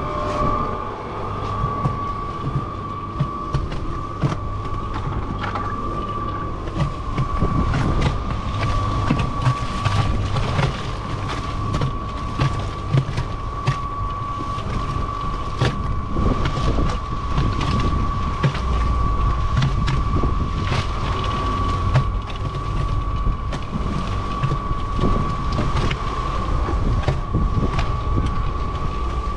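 Small electric cement mixer running, its drum turning a load of wet mortar, with a steady high whine and frequent knocks and clatter over a low rumble.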